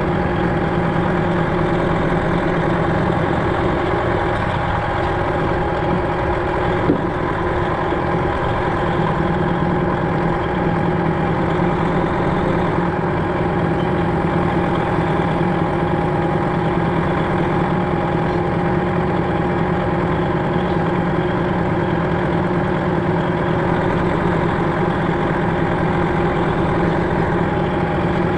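Semi truck's Detroit Diesel 12.7 engine idling steadily, with one light click about seven seconds in.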